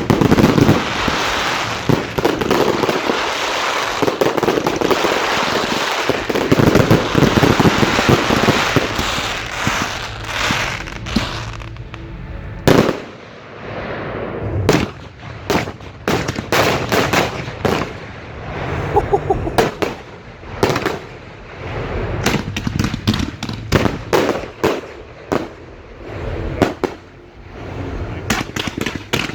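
Professional fireworks display heard close to the firing site. For the first ten seconds or so it is a dense, continuous barrage of crackling and bangs; after that come separate sharp bangs in quick succession.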